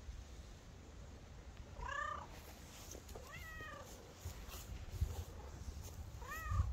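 A domestic cat meowing three times: short meows about two seconds in, again a second and a half later, and once more near the end.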